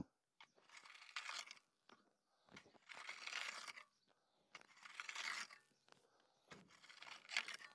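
Garden rake dragged through road gravel, four faint scraping, crunching strokes about two seconds apart.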